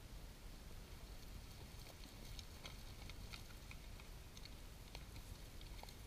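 Faint outdoor ambience: a steady low rumble with scattered light clicks and ticks starting about two seconds in.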